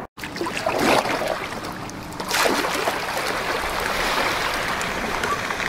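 Kayak paddle strokes in calm river water: two strong splashing strokes about a second and a half apart, then steady lapping and trickling of water along the hull.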